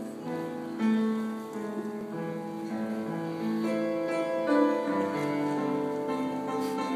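Piano playing a slow passage of held notes and chords, changing step by step.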